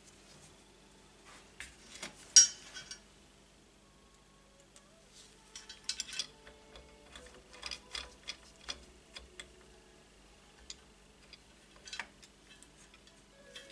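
Clicks and light knocks of a metal motorcycle footrest plate and rear brake master cylinder being handled and taken apart on a workbench. The loudest knock comes about two seconds in, followed by a run of small irregular clicks.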